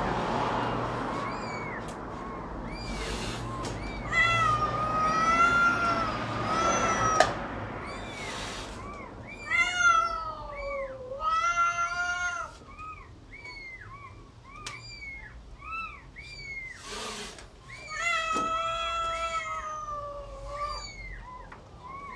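A cat meowing in long, drawn-out yowls, three times over, each lasting two to three seconds, with short high mews repeating about once a second in between. A few brief hissing bursts come between the calls.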